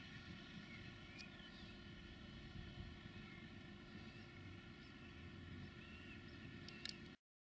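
Distant tractor engine running steadily, a low even hum with a steady tone, while small birds chirp a few times. The sound cuts off suddenly near the end.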